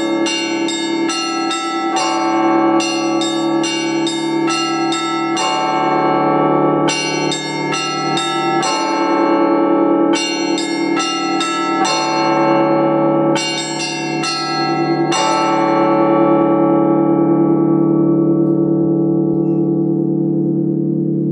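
Russian Orthodox church bells rung from the belfry in the Rostov tradition: quick runs of strokes on the small bells over the steady hum of a big bell, in several bursts. About fifteen seconds in the ringing stops with a last stroke, and the bells ring on and slowly fade.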